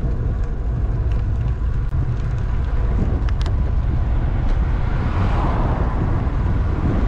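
Wind buffeting the microphone during a fast downhill ride: a steady low rumble with road hiss over it, a few light ticks about two to three and a half seconds in, and the hiss swelling about five seconds in.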